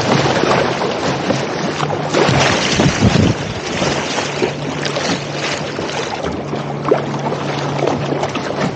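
Choppy seawater rushing and splashing against a sea kayak's hull and paddle in a strong tidal current, with wind buffeting the microphone; the splashing comes in irregular bursts.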